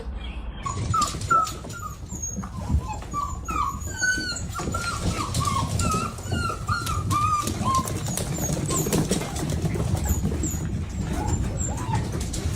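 A dog whining in a quick run of short, high whimpers, then only a few more calls near the end.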